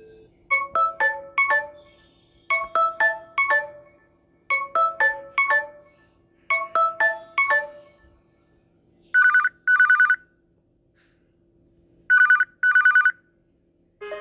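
Samsung Galaxy S25 ringtones playing on a Samsung Galaxy A54 5G phone. First a quick four-note chime figure repeats four times, about every two seconds. Then a different ringtone, a buzzy double ring like a telephone bell, sounds twice with a pause between.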